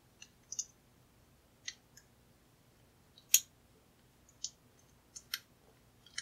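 Light, irregular metal clicks and ticks, about nine of them with the loudest a little past halfway, from a bypass tool being worked and turned in the keyway of a round steel padlock. The tool spins without catching anything, so the bypass is not taking.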